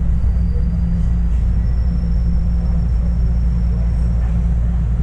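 Subway train running at speed between stations: a loud, steady low rumble, with a faint high whine.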